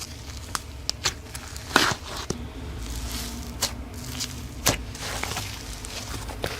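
Hands squishing and poking slime: irregular sharp clicks and pops, the loudest about two seconds in and again near the five-second mark, over a low steady hum.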